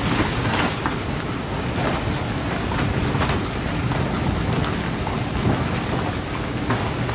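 Tunnel car wash running: spinning cloth wrap-around brushes swishing and slapping against a car's side amid spraying water, over the steady din of the wash machinery.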